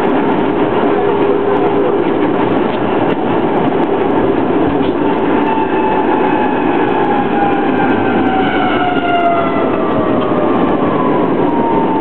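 Narrow-gauge tram running along its track, heard from inside the car: a steady rolling and rumbling noise, with a whine that slowly falls in pitch over the second half.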